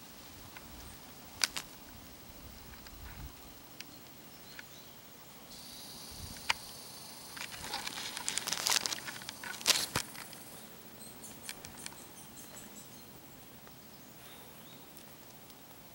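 Quiet outdoor background with scattered sharp clicks. In the middle come a few seconds of rustling and crackling, with a thin, steady, high whine over them that starts and stops abruptly.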